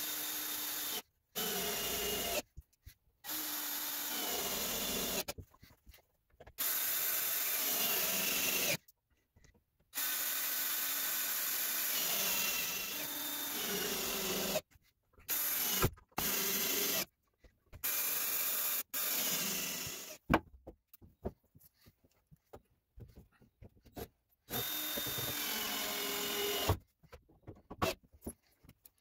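Cordless drill run in about ten short bursts of one to four seconds into wood, its motor pitch rising and falling within each run. Scattered clicks and knocks of handling come between the later runs.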